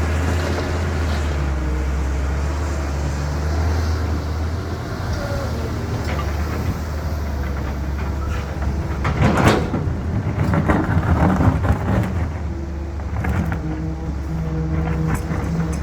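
CAT 320 hydraulic excavator's diesel engine running steadily under load, with a loud stretch of clattering and scraping about nine to twelve seconds in.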